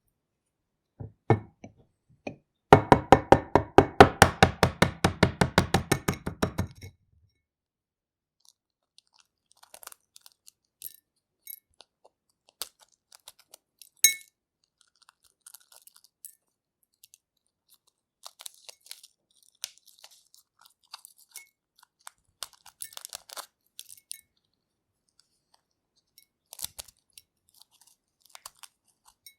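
Boiled egg knocked against the rim of a glass bowl: a few single taps, then a rapid run of taps at about ten a second for some four seconds, cracking the shell all over. Then the shell is peeled off in faint, scattered crackles and ticks, with one sharper click midway.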